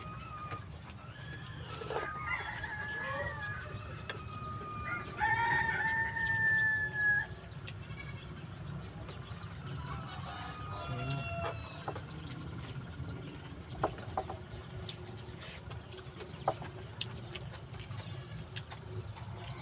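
A rooster crowing: one long, loud crow held on a steady pitch about five to seven seconds in, with shorter calls before and after it. A few light clicks follow later.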